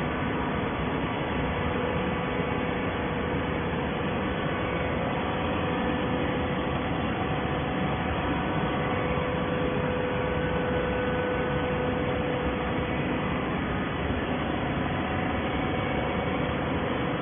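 Scrap-carton baler machinery running steadily: an even hum and hiss with a few faint steady tones.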